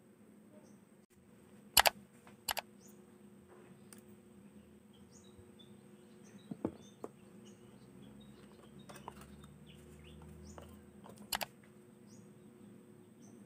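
Phone-box packaging being handled: a few sharp clicks and taps of the cardboard box and tray, and softer knocks as parts are lifted out. Small birds chirp faintly throughout, with brief high chirps falling in pitch.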